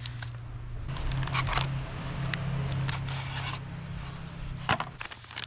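MRE packaging being handled: the plastic entree pouch and its flameless ration heater bag crinkle and rustle, with scattered clicks and a sharper click near the end. A steady low hum runs underneath.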